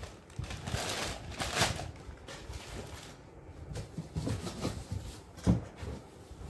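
Packaging rustling as a cardboard box is opened and rummaged through, with scattered knocks and one sharp thump about five and a half seconds in.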